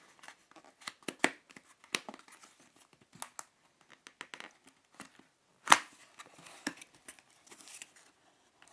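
A cardboard product box being opened by hand: scattered clicks, scrapes and rustles of flaps and packaging, with one sharper knock a little past halfway.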